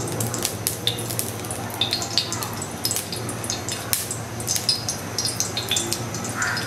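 Cooking oil sizzling and crackling in a pan on the stove, with frequent sharp pops over a steady low hum.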